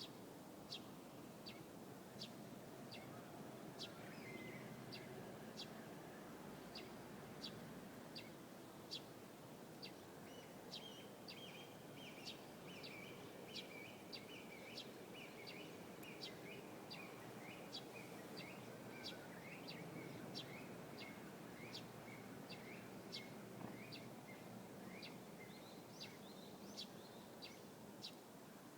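Small songbirds singing in the morning: a short, sharp high chirp repeated a little more than once a second, joined from about ten seconds in by a faster twittering song lower in pitch that stops near the end. Faint steady background noise lies beneath.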